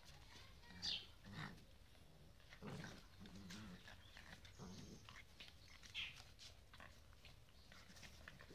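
Puppies play-fighting, giving low grunts and growls with a couple of short high yelps, one about a second in and another around six seconds.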